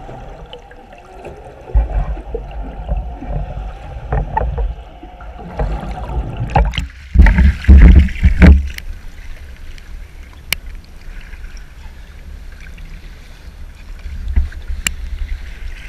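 Water heard through a camera held underwater, muffled and low, then loud splashing and water buffeting the camera housing as it breaks the surface about seven seconds in, followed by steadier wind and small waves slapping against the boat's hull.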